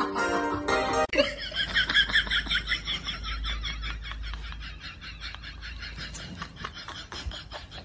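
High-pitched giggling laughter in quick, rhythmic pulses that fades out gradually.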